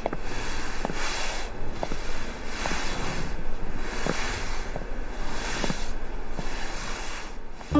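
A long-handled broom sweeping a concrete floor in steady swishing strokes, a little faster than one a second. A ringing musical tone comes in at the very end.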